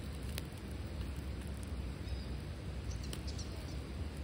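Small wood fire crackling under a steel grill, with a few sharp pops: one about half a second in and several around three seconds. A steady low rumble runs underneath.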